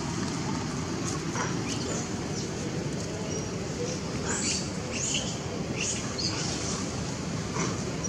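Steady outdoor background noise with a few short, high-pitched chirps between about four and six and a half seconds in.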